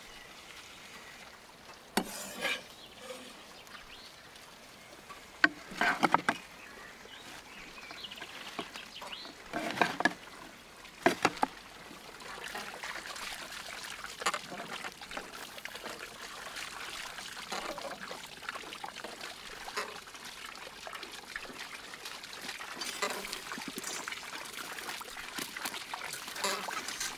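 Doner meat stack sizzling and crackling on a spit over the grill fire. There are a few sharp knocks and clicks in the first half, and a steady crackle through the second half.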